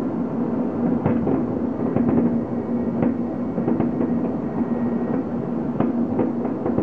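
Many fireworks going off at once, a dense, continuous din of bangs with sharper single bangs standing out every second or so.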